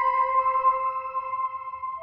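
Background music of slow, sustained notes that overlap and ring on, easing slightly in level toward the end.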